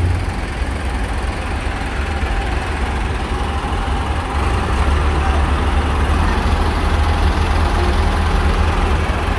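Diesel farm tractor engines running slowly, a steady low rumble that grows a little louder about halfway through as a tractor rolls past close by.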